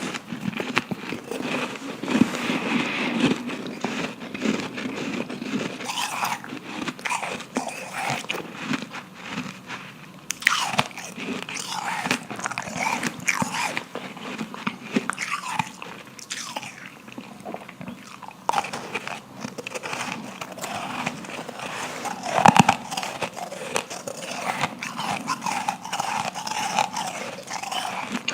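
Close-up biting and chewing of refrozen powdery ice: a steady, irregular crunching and crackling as the ice breaks and is chewed, with one sharper, louder snap of a bite near the end.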